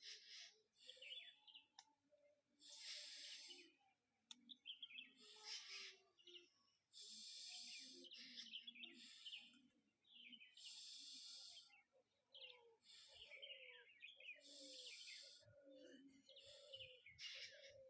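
Deep, forceful breaths drawn in and pushed out through both nostrils in a steady rhythm of bhastrika pranayama, one breath about every two seconds. Birds chirp throughout in the background.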